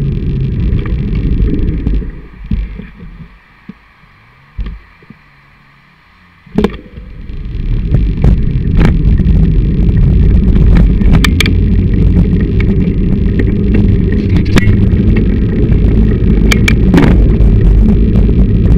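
Handlebar-mounted camera on a moving mountain bike: a loud, low rumble of wind and trail vibration through the mount, with sharp knocks and rattles as the bike hits bumps. It falls much quieter for a few seconds about two seconds in, then a sharp knock and the rumble returns for the rest.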